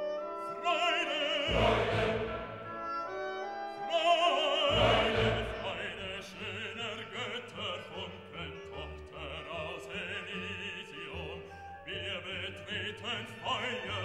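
Classical background music: an operatic voice singing with wide vibrato over orchestral accompaniment, with deep bass notes coming in about a second and a half in and again near the five-second mark.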